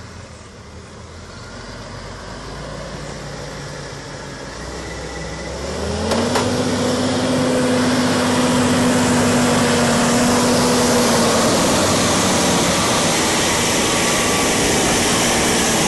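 Diesel engine of a Scania heavy truck driving through deep mud, growing louder as it approaches and then passing close by about six seconds in, with a steady engine note and a loud, even rushing noise from then on.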